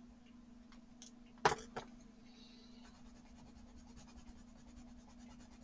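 Derwent Artists coloured pencil rubbing back and forth on watercolour paper in quick, even strokes, starting about three seconds in. It is preceded by a few sharp clicks, the loudest about a second and a half in, with a steady low hum underneath.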